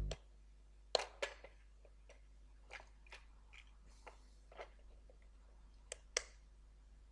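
Irregular small clicks and taps, about ten of them, sharpest as a pair about a second in and another pair near six seconds. A faint steady low hum lies underneath.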